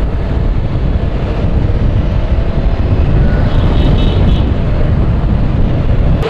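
Steady low rush of wind over a helmet-mounted camera's microphone while riding a KTM Duke 200 motorcycle, its engine running beneath.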